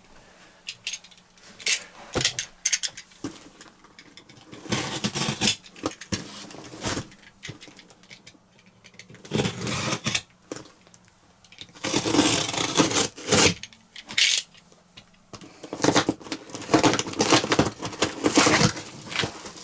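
A cardboard parcel being opened by hand: several bursts of cardboard scraping, tearing and rustling of packing, with a few short knocks near the start.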